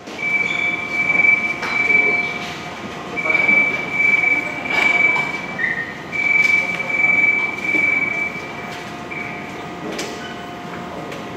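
Incheon Subway Line 1 1000-series train at the platform, with a high steady squeal in three stretches of about three seconds each over a rumbling hum, and a few sharp clicks.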